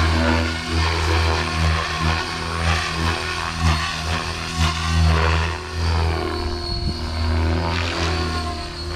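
Oxy5 electric RC helicopter in aerobatic flight, its 570 mm main rotor blades churning with a steady high motor whine over it. The blade noise swells and fades in rushing waves as the helicopter flips and turns, loudest around its passes near the middle.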